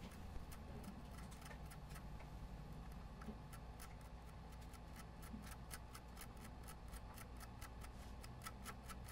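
Tweezer tips scraping and tapping at a burnt surface-mount chip on a laptop motherboard, cleaning char off its top: faint rapid clicks, several a second, coming more evenly after the first couple of seconds.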